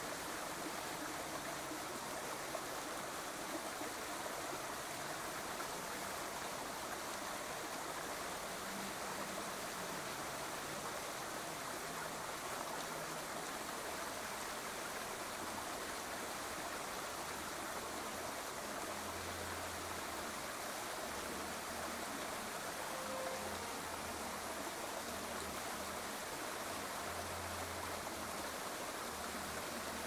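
Small woodland waterfall spilling over a rock ledge onto stones: a steady, even rush of running water.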